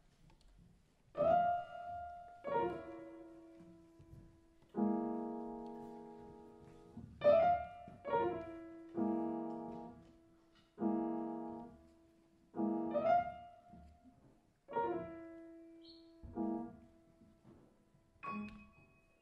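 Grand piano played solo: about a dozen slow, sparse chords, starting about a second in, each struck and left to ring and fade before the next.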